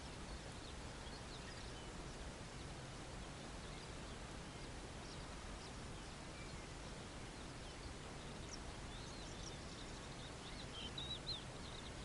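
Steady outdoor background hiss with faint, scattered high chirps of distant small birds, which come thicker near the end.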